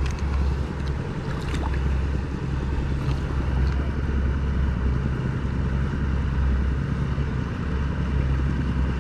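Steady rush of river current, with a low buffeting rumble of wind on the microphone.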